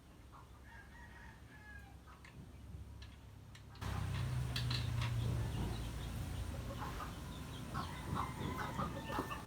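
Chickens clucking, louder from about four seconds in, over a low steady hum and scattered light clicks.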